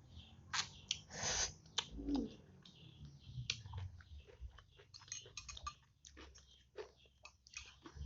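Close-up eating of chicken noodles: a slurp about a second in, then wet chewing with many quick small mouth clicks.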